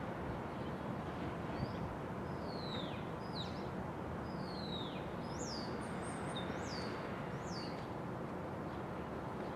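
A bird giving short, high chirps that sweep downward, roughly one a second, from about two seconds in until near the end. Under them runs a steady outdoor background noise.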